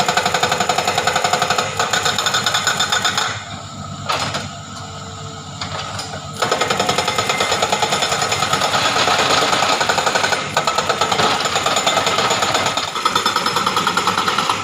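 Hydraulic breaker on a Hitachi excavator hammering rock in rapid, even blows. It stops for about three seconds a third of the way in, leaving a lower steady drone, then hammers again until shortly before the end.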